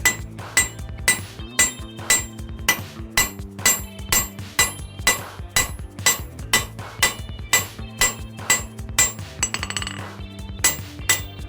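Blacksmith's hammer striking hot steel bar stock on the anvil in a steady rhythm of about two blows a second, each blow followed by a bright anvil ring.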